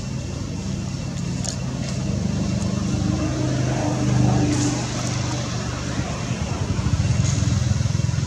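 A motor engine running, a steady low hum that swells about four seconds in and again near the end.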